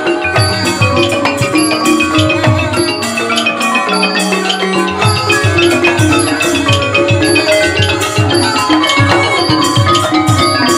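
Thai pi phat mai khaeng ensemble playing an instrumental passage: ranat xylophones and gong-circle notes in fast running lines over regular drum strokes.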